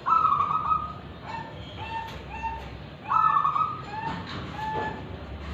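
Caged zebra dove (perkutut) cooing its song twice: each phrase opens with one long higher note, then runs into about three short, lower coos.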